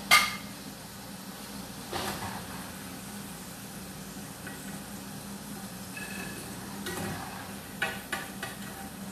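Food sizzling in a frying pan, with a utensil clinking against the pan and a plate. A sharp clank just after the start is the loudest sound, and a few lighter clicks come near the end.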